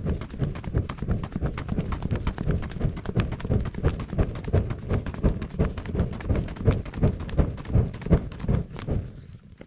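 A campfire being fanned hard: quick, even strokes of air, several a second, buffeting the microphone as each sweep passes. The fanning stops near the end.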